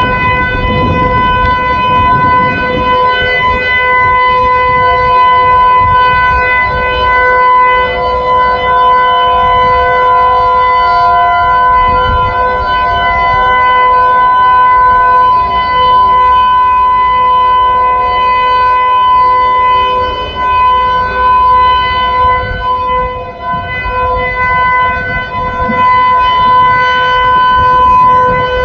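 Outdoor tornado warning siren sounding a steady, unwavering tone during a siren test, its loudness dipping slightly now and then.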